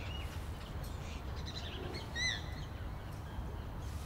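Outdoor ambience: several birds chirping and calling, with one louder arching call about two seconds in, over a steady low rumble.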